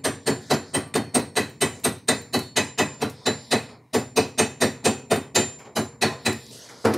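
Chipping hammer striking a stick weld on steel plate about four times a second, knocking off the slag, with a faint metallic ring. There is a brief pause about four seconds in.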